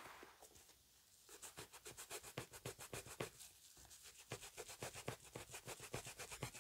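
Faint, quick back-and-forth scrubbing on a boot, working cleaner into a stuck blob of chewing gum, with a short pause about halfway.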